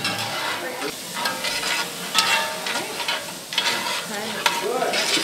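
Diced onions, peppers, celery and garlic sizzling in a cast-iron skillet while a metal spoon stirs them, with several scraping strokes against the pan. The vegetables are sautéing and starting to caramelize.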